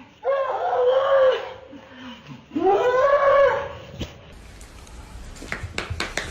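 An animal gives two long, pitched calls, each lasting about a second and bending in pitch, with a short gap between them. Near the end come a few sharp clicks or knocks.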